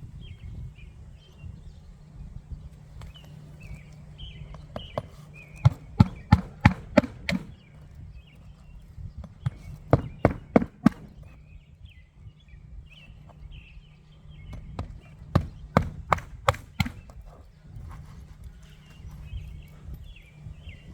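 Three quick runs of hammer blows, five or six strikes each, driving nails during a repair of asphalt roof shingles.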